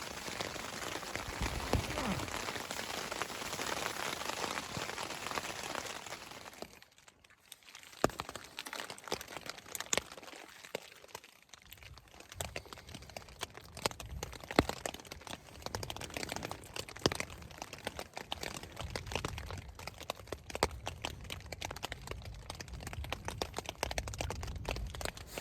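Rain falling as a steady hiss for about six seconds. After a sudden cut it gives way to many scattered sharp ticks of drops, or the first hail, striking close by.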